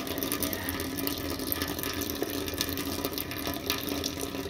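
Tap water running in a thin stream into a stainless steel sink, splashing steadily over a wet hand and coin.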